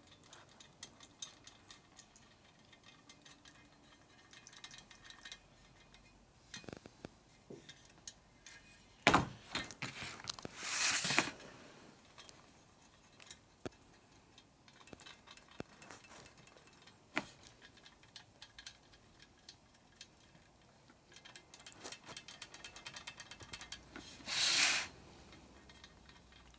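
Small metallic clicks and clinks of stainless steel spokes and spoke nipples being handled and turned with a screwdriver on a motorcycle wheel during lacing. There is a sharp knock about nine seconds in, and a louder metal rattle around eleven seconds in and another near the end.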